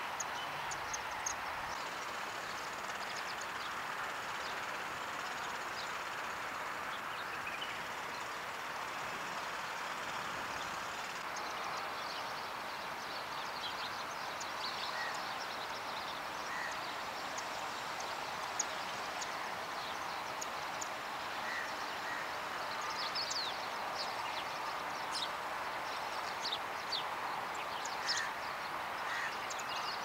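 Indian silverbills giving short, high, thin chirps, scattered at first and coming more often in the last third, over a steady rushing background noise.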